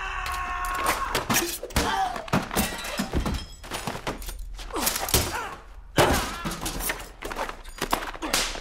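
Film fight sound effects: a quick, irregular run of thuds and smacks as blows land, with a few short grunts.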